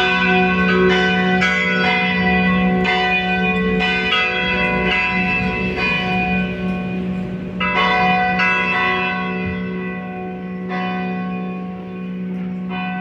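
Two church bells ringing together, their strikes falling irregularly and overlapping in long ringing tones over a deep steady hum. The strikes come further apart and grow quieter over the last few seconds.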